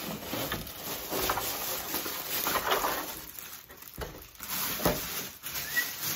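Clear plastic bag crinkling and rustling as it is handled with a gun inside, with a couple of sharp knocks about two-thirds of the way through.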